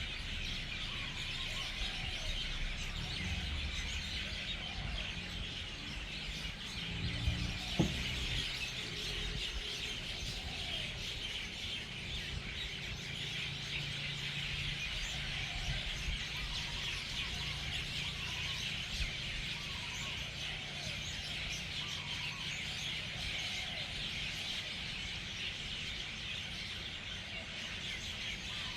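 A large flock of birds, hundreds strong, keeps up a dense, unbroken chatter of overlapping calls as it settles into its evening roost for the night. A single brief knock sounds about eight seconds in.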